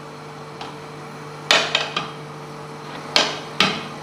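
Metal kebab skewers knocking against an iron tawa as they are handled: a sharp metallic clank about a second and a half in followed by two lighter knocks, then two more clanks near the end.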